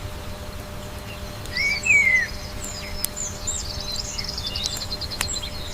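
Birds chirping and warbling over a steady outdoor background hiss, the loudest a wavy chirp about two seconds in. Two sharp clicks, one about three seconds in and one near the end.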